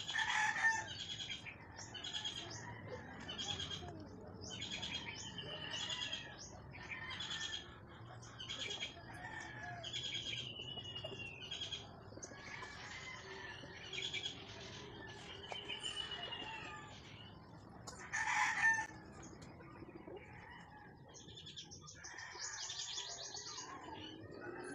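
Birds calling over and over: short high chirps falling in pitch, about one to two a second, with one louder call about eighteen seconds in and a quick trilling call near the end.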